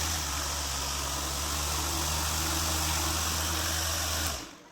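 High-speed motor of a homemade plastic-bottle toy helicopter spinning its rotor, running steadily with a low hum and an airy whir, then shutting off abruptly near the end.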